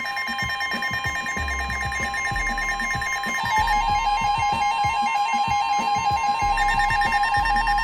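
Several NOAA weather radios sounding at once as a new severe thunderstorm warning comes in. A steady warning alarm tone is held throughout, with the radios' own beeping alarms over it. About three seconds in, a fast warbling alarm joins.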